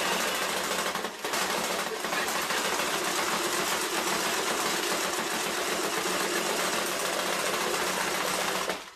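Animatronic toy skeleton giving out a loud, steady buzzing noise with a low hum under it, dipping briefly twice and cutting off suddenly near the end.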